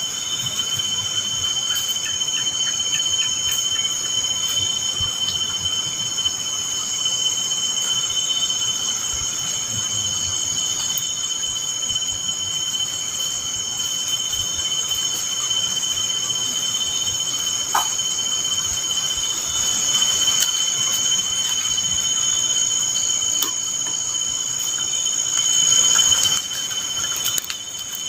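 Steady chorus of night insects, likely crickets, holding two even high-pitched tones, with a few faint knocks scattered through it.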